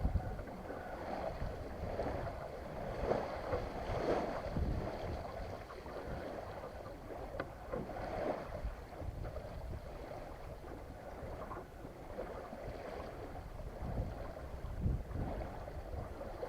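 Water washing and lapping against the hull of an SJ23 sailboat under sail, with gusts of wind rumbling on the microphone and a single light tick about seven seconds in.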